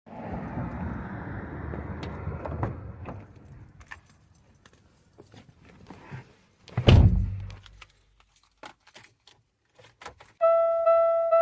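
Keys jangling and small clicks over a low rumbling noise that fades out within the first three seconds, with one loud heavy thud about seven seconds in. About ten and a half seconds in, a keyboard starts repeating a single note in an even pulse.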